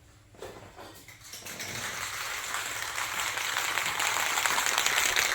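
Aerosol spray-paint can spraying: a steady hiss that starts about a second and a half in, after a few faint clicks, and grows a little louder.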